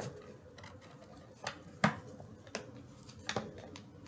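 Flour being poured, with about four light taps and clinks of kitchenware spread over a few seconds.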